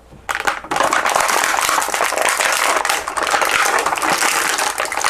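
Stiff plastic blister packaging crackling and rustling in the hands as an action figure is worked free of its tray. It starts after a couple of small clicks about a third of a second in, then keeps up as a loud, dense crackle.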